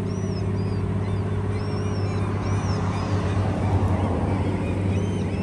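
Steady low machinery hum with a few even overtones, over the rush of a shallow creek running over stones, with short high chirping bird calls coming and going.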